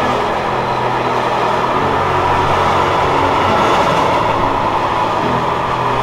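Empty freight wagons of a passing goods train rolling by on the rails: a loud, steady noise of steel wheels running over the track.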